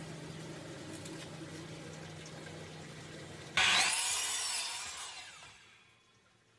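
DeWalt sliding compound miter saw running steadily with a low motor hum. About three and a half seconds in, its blade cuts through a wooden board with a sudden loud rasping noise that fades away over the next two seconds.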